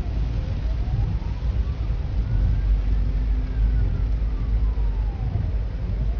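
Hong Kong ambulance siren in a slow wail, rising for about two and a half seconds, falling for as long, then rising again near the end. It is faint under a loud low rumble of the car and traffic, heard from inside a car.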